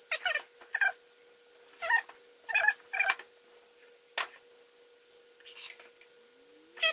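A series of short, high-pitched animal cries, about half a dozen spaced half a second to a second apart. There is a sharp click about four seconds in, and a faint steady hum underneath.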